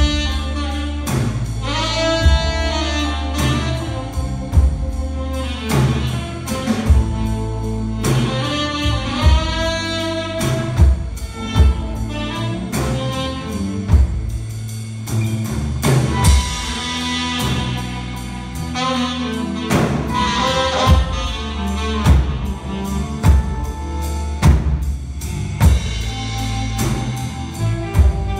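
Live blues band: a saxophone solo of bending melodic phrases over a drum kit keeping a steady beat and a low bass line.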